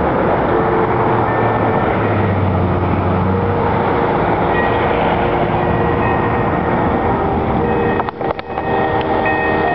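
Church bells ringing a tune, one pitch after another, over loud steady background noise that briefly dips about eight seconds in.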